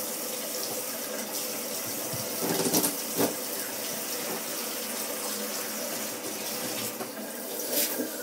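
Water running steadily from a bathtub-shower faucet, with a couple of light knocks about three seconds in.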